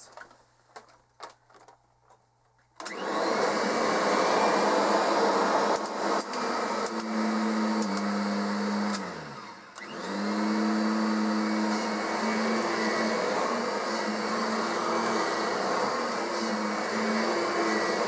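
Kirby Sentria upright vacuum switched on about three seconds in, after a few light handling clicks, then running steadily while pushed over carpet. Its hum falls in pitch and the sound sags briefly about nine and a half seconds in, then picks back up and runs on evenly.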